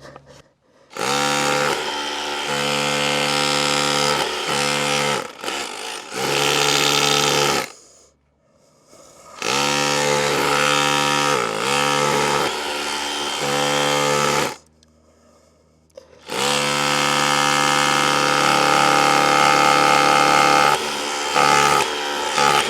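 DeWalt DCH263R2 cordless SDS-plus rotary hammer running in chisel mode, hammering into a wall in three long bursts with short pauses between them. Its pitch sags briefly under load in the middle burst.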